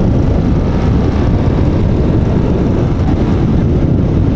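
Steady rumble of motorcycles riding at road speed: engine and road noise mixed with the rush of wind.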